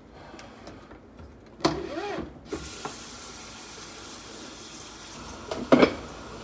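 Kitchen tap turned on about two and a half seconds in, water running steadily into the sink, with a sharp clatter near the end.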